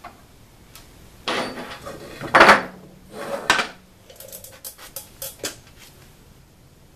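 Metal hand tools and small hardware being handled on a workbench: a few scrapes and clanks, the loudest about two and a half seconds in, then a run of small light clicks.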